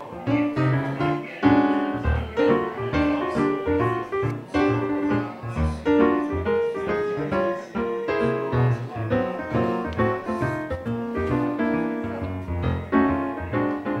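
Background music led by piano, with quick, evenly paced notes.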